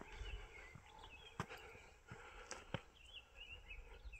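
Faint songbirds chirping in short, repeated phrases, busiest near the end, with a few soft clicks.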